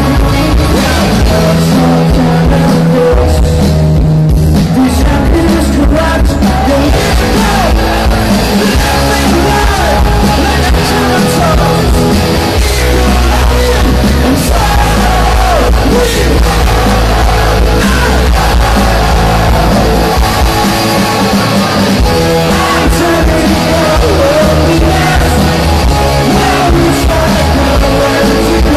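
Rock band playing live with singing, heard from within the audience.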